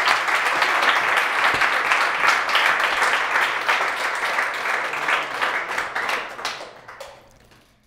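Applause from a small seated audience, many hands clapping at once, dying away over the last couple of seconds.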